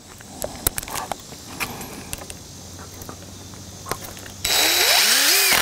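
A few light handling clicks, then about four and a half seconds in a cordless impact driver runs loudly for about a second, driving a small wood screw through a thin pine board into a steel hinge, and stops abruptly.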